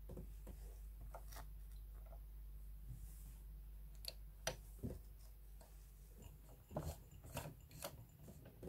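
Vintage Jones M949 zigzag sewing machine running at low level with a steady low hum, then a few sharp clicks and taps in the second half.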